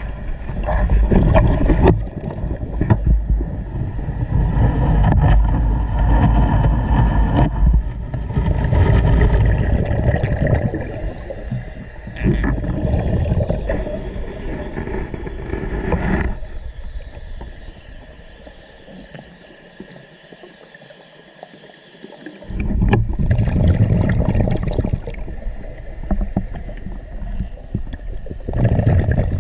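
Scuba diver's breathing heard underwater: exhaled bubbles from the regulator gurgle and rumble in long surges, with a quieter pause about two-thirds of the way through.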